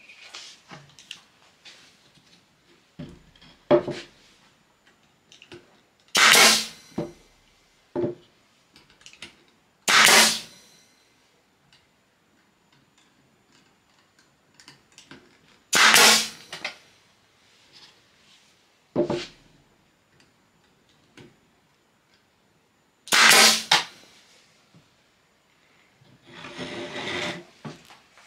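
Nail gun firing four times, several seconds apart, each shot a short, loud burst, fastening the wooden end pieces of the egg rack. Between shots, wooden pieces knock against the workbench as they are set in place.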